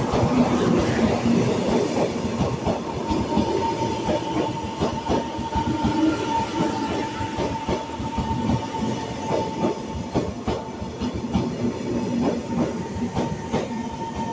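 Passenger train rolling on the track, its wheels clicking irregularly over rail joints, with a steady high-pitched tone throughout.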